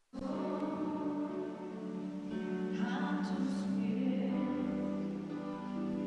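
Worship music: sustained keyboard chords held under voices singing.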